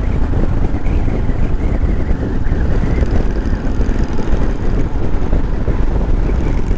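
Wind rushing over the microphone of a moving motorcycle, a Royal Enfield Himalayan, with its 411 cc air-cooled single-cylinder engine running underneath. The sound is loud and steady throughout.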